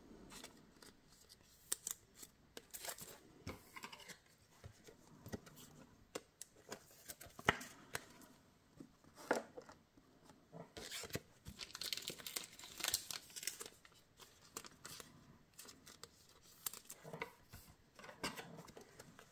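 Faint handling of glossy basketball trading cards on a table: scattered soft clicks, taps and slides of card stock, with a denser stretch of rustling near the middle.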